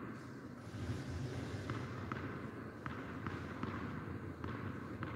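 Tennis ball bounced repeatedly on a hard court before a serve: a sharp tap roughly every three-quarters of a second, over a low steady background rumble.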